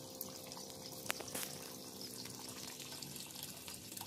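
Steady trickle of water running into a concrete fish pond, with two light taps a little after a second in.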